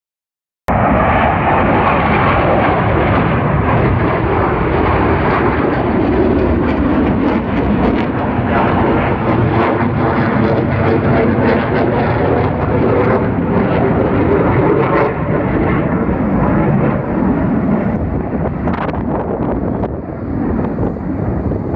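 Military jet fighter's engines heard during an air show display: loud, continuous jet noise that shifts slowly in pitch and eases off a little near the end.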